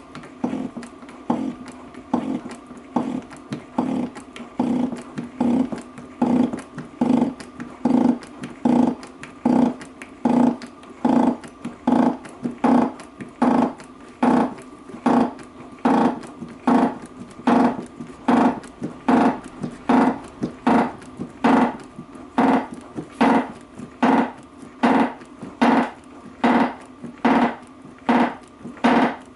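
Hand hydraulic pump (Enerpac) being pumped by its lever, a little over one stroke a second, each stroke a short, low-pitched creaking tone. The pump is driving a press that forces a tight pinion bearing onto the differential pinion shaft.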